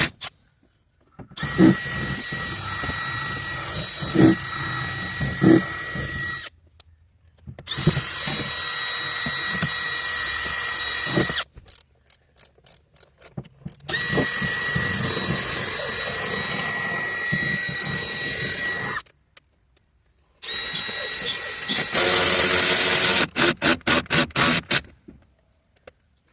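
Cordless power drill running in four bursts of a few seconds each with a steady whine. Quick runs of clicks fall between the bursts.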